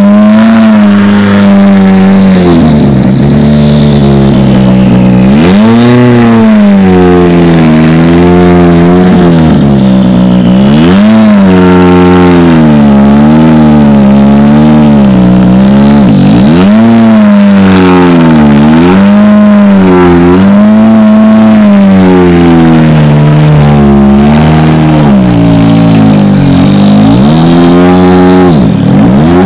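Hyundai i20 R5 rally car's 1.6-litre turbocharged engine driven hard, revving up and down without pause as it goes through the gears. The pitch dips sharply twice, about halfway through and again near the end.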